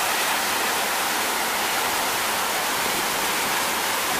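Waterfall pouring into its plunge pool: a steady, even rushing hiss.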